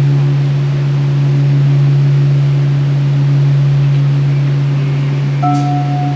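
A sustained low musical drone held on one note over a steady hiss, with higher held notes coming in about five and a half seconds in.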